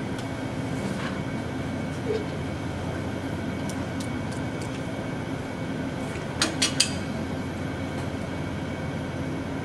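Steady room hum and hiss with a constant low drone, with three quick sharp taps about two-thirds of the way through.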